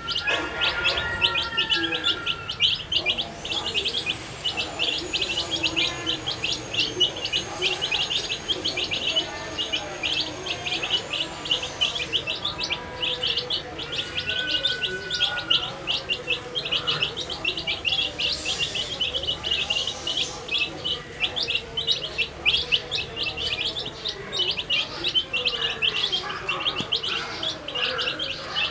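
A group of baby chicks peeping continuously: a dense, unbroken stream of short, high cheeps, many each second.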